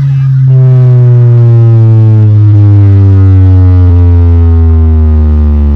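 Large carnival sound system playing a jingle's loud, deep tone that slides slowly and steadily downward in pitch over several seconds.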